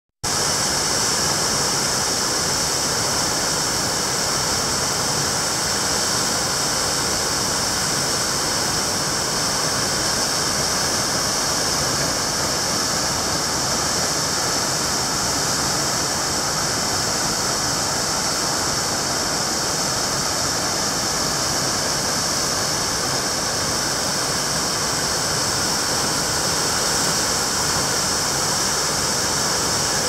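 Waterfall plunging into a rock pool: a loud, steady rush of falling water, hissy and bright, that does not change.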